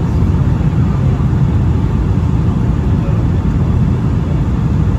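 Steady low rumble of a Boeing 757-200's Pratt & Whitney PW2000 engines and rushing airflow, heard inside the passenger cabin in flight.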